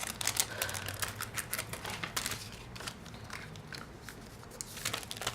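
Small items and packaging being handled at close range: a run of quick, irregular clicks and rustles.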